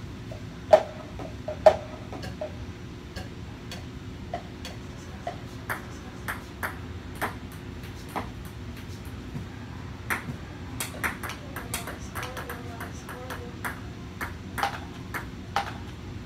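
Ping pong ball bouncing and clicking off the table and plastic cups: scattered sharp taps, the two loudest about a second in and a quick run of bounces around ten to twelve seconds in, over a steady low hum.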